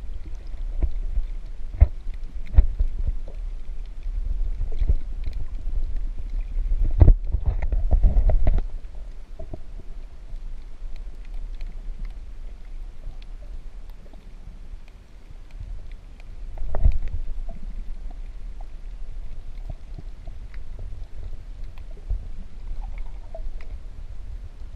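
Muffled underwater sound of water and the swimmer's movement: a steady low rumble with scattered clicks and knocks, louder for about two seconds starting some seven seconds in and again briefly around seventeen seconds.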